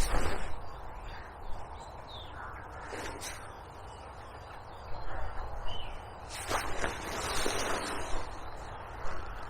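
Wild birds calling: a few harsh crow-like caws and several short, high chirps that fall in pitch.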